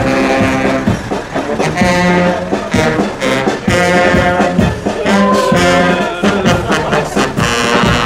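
Brass band music with a regular beat, several held notes changing in steps.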